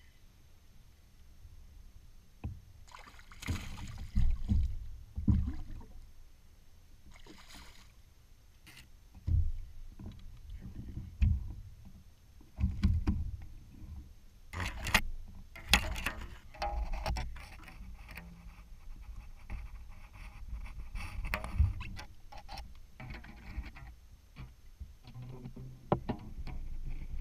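Knocks, bumps and clicks in a fishing kayak while a bass is reeled in, lifted aboard and unhooked. The knocks are scattered and irregular and start about three seconds in.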